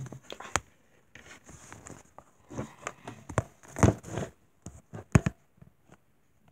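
Handling noise: irregular clicks, taps and rustles as small plastic toys and the camera are moved about, with a few sharper knocks past the middle.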